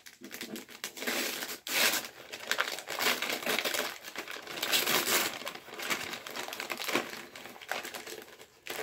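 Packaging being handled, crinkling and rustling almost continuously, with irregular louder crackles.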